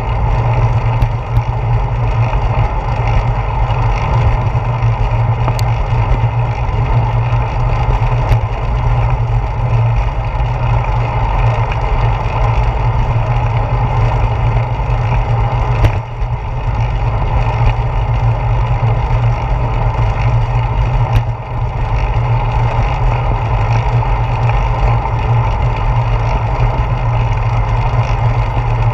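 Steady rush of wind and road rumble on a handlebar-mounted GoPro while a bicycle rolls along a paved path, with an occasional sharp click.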